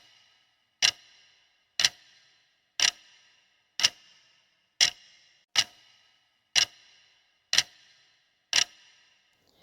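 Clock-tick countdown timer sound effect: nine sharp ticks about one second apart, each with a short ring, counting down the time allowed to answer a quiz question.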